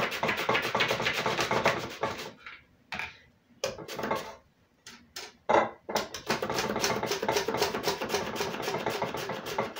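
Red onion being sliced on a handheld mandoline slicer: quick rasping strokes, several a second, in two runs with a pause of about three seconds between them.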